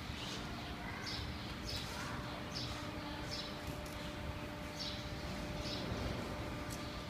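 A small bird chirping over and over, one short high chirp every second or less, over a steady low hum.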